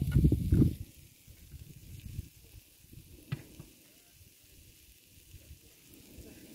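Wind buffeting the microphone in loud gusts for the first second or so, then dying down to a steady faint hiss with light rustling and one sharp click about three seconds in.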